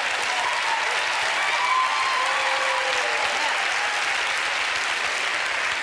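Studio audience applauding and laughing, steady clapping with a few voices laughing over it.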